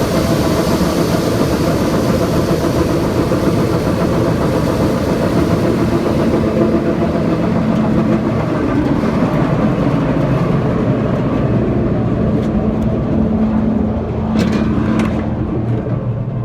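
Farm machinery engine running steadily under load. A high-pitched hiss fades away about six seconds in, and a few short clicks come near the end.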